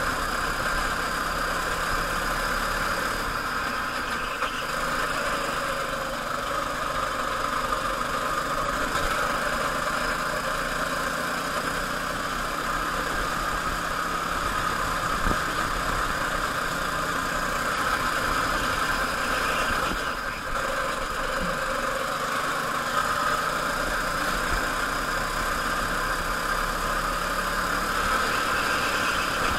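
Go-kart engine running steadily through a lap, heard from the kart's onboard camera, its note rising and falling slightly through the corners.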